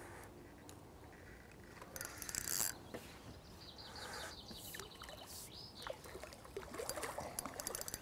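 Faint outdoor ambience with birds chirping, and a short burst of rapid clicking about two seconds in.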